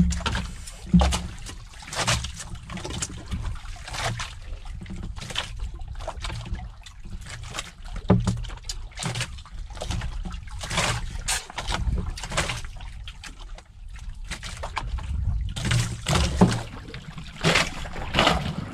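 Water sloshing and lapping against the hull of a small boat, under irregular light knocks and clicks from plastic plates and bowls handled while eating.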